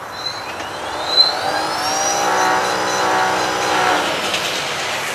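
A motor revs up, its whine rising in pitch over a couple of seconds, holds steady, then drops away near the end.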